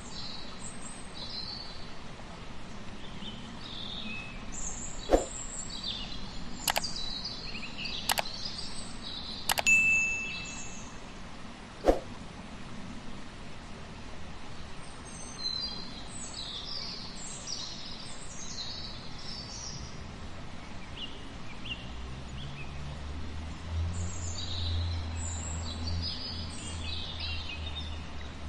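Outdoor nature ambience: birds chirping and calling in scattered short phrases over a steady background hiss. A few sharp clicks come between about five and twelve seconds in, and a low rumble rises in the last few seconds.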